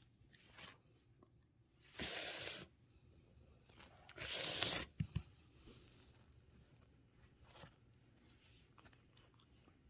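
Two short rustling scrapes against a bed duvet, each about half a second long and about two seconds apart, followed by a couple of faint clicks.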